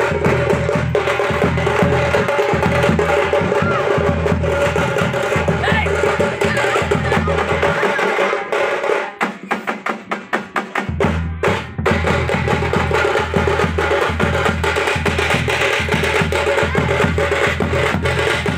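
Loud, driving drum music with a heavy repeating low beat and a steady held tone over it. About eight seconds in the bass beat drops out and a fast run of sharp drum strokes plays alone for about three seconds, then the full beat comes back.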